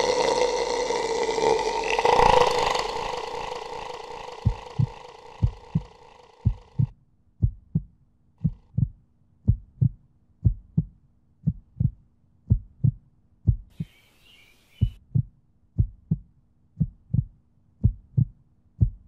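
A sustained synth chord fades out over the first few seconds. About four seconds in, a heartbeat sound effect takes over: steady low thumps, many of them in lub-dub pairs, over a faint hum. A short hiss comes about two-thirds of the way through.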